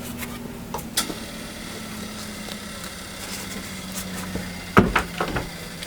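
Bandsaw running steadily with a 3 tpi blade, its hum dipping slightly in pitch about a second in. A few loud wooden knocks come about five seconds in.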